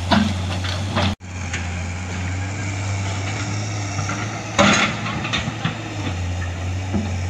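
Hydraulic excavator's diesel engine running steadily as a low hum, with a brief louder noise about four and a half seconds in.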